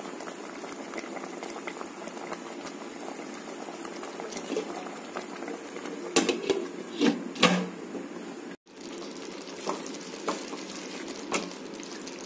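Creamy cashew-and-cream chicken gravy bubbling in a non-stick pan as it comes to the boil: a steady fine fizzing and popping. A few sharp knocks come between about six and seven and a half seconds in, and a couple more near the end.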